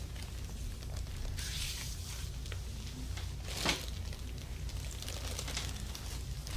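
Hands rubbing and pressing during a massage, giving soft swishing strokes over a steady low hum. One brief, louder scrape comes a little past halfway.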